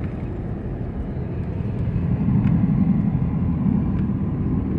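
Steady road and engine rumble of a moving vehicle heard from inside the cab, swelling somewhat louder about halfway through.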